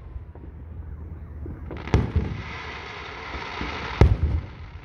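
Aerial firework shells bursting: two loud booms about two seconds apart, with a steady hiss between them.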